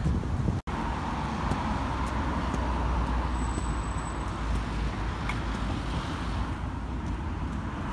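Steady road traffic noise from cars on a busy roundabout, with a low rumble of engines and tyres.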